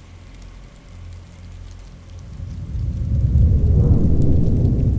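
A deep rumble that swells up from about two seconds in, is loudest around four seconds, then begins to fade, over a faint steady hiss of background ambience.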